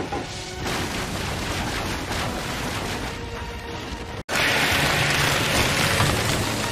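Anime sound effect of a wooden wall surging up out of the ground: a dense crackling rush of growing timber over music. It breaks off abruptly about four seconds in and a louder rushing noise starts at once.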